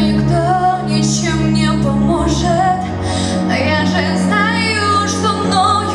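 A woman singing a slow song with vibrato over sustained low accompaniment chords.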